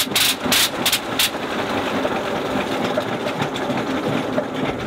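Sopwith Pup's rotary engine catching after being hand-propped: a few loud pops in the first second or so, then running steadily.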